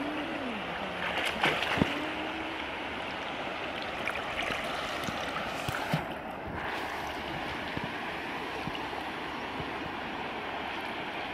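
Water sloshing and splashing as people wade and swim through shallow muddy water, over a steady rush of moving water, with a few sharper splashes a couple of seconds in and again about six seconds in.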